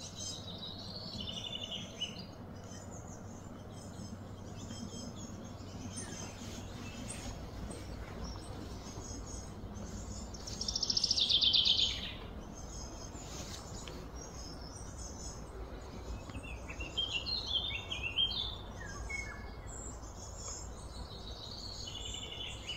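Birds chirping and calling, with one louder call of about a second and a half, falling in pitch, near the middle and a quick run of calls later on, over a steady low rumble.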